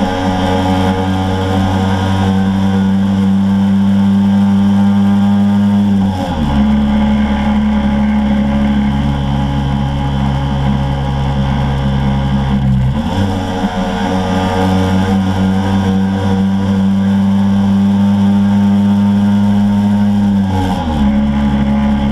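Motor scooter engine running steadily at speed. Its pitch steps down suddenly about six seconds in, climbs back up around thirteen seconds and steps down again near the end, as with gear changes.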